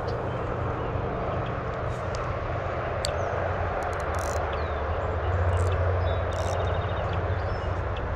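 Steady low engine drone, a little louder past the middle, with scattered light clicks and a few short high chirps over it.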